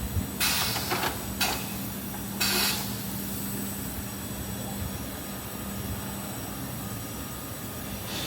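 Automatic SPC flooring packing machine running, with a steady mechanical hum that stops about six seconds in and three short hissing bursts in the first three seconds.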